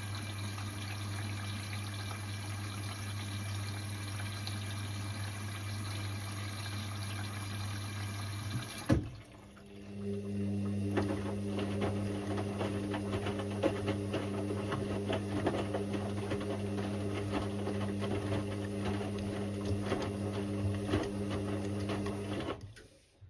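Indesit IWC6165 washing machine early in its wash cycle: a steady hum with rushing water, as during filling. About nine seconds in there is a sharp clunk and a short lull. The drum motor then runs with a steady hum and light rattling, and cuts off just before the end.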